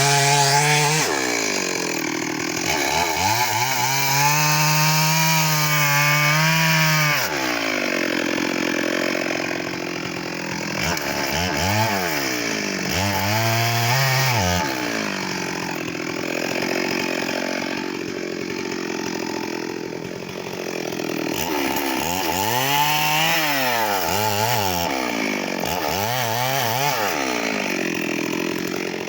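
Stihl MS 382 two-stroke chainsaw cutting mahogany. Its engine speed rises and drops again and again as the throttle is worked, with rougher stretches where the chain is in the wood.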